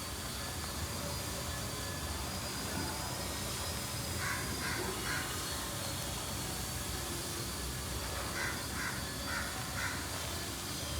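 A bird calling in two short bouts, three calls and then four, over a steady background hiss and rumble.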